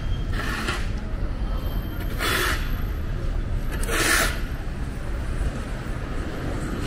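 Roadside traffic noise: a steady low rumble, with three short hissing swells a couple of seconds apart.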